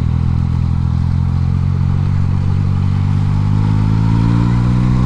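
Yamaha MT-09's three-cylinder engine running steadily under light throttle, its pitch rising slightly toward the end.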